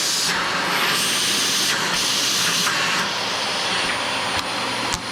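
Dyson DC25 Animal upright vacuum cleaner running with strong suction on freshly replaced genuine Dyson filters: a steady rush of air under a high whine. The airflow swells and eases a few times in the first three seconds.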